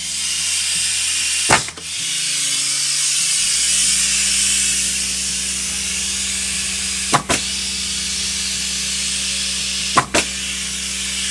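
Pneumatic framing nailer on air, hissing steadily as air leaks out of it, with three sharp clacks as it is cycled. A low steady hum joins about three seconds in. The owner takes the leak for a busted O-ring.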